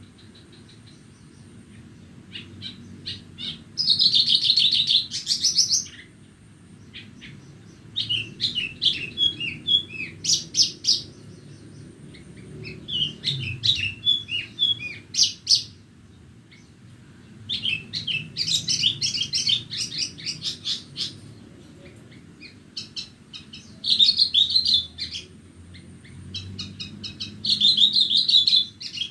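Branjangan (Bornean form of Horsfield's bush lark) singing: about six bursts of fast chirping trills, each two to three seconds long with short pauses between, over a steady low rumble.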